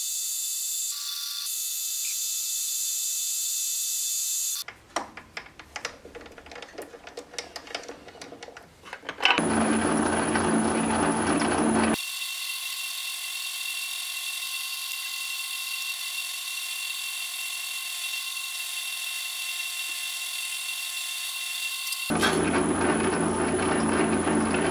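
Metal lathe running with a steady whine as it turns and drills a steel part with a twist drill held in the tailstock chuck. The sound changes abruptly several times: a quieter scratchy stretch, then louder rough cutting noise about ten seconds in and again near the end.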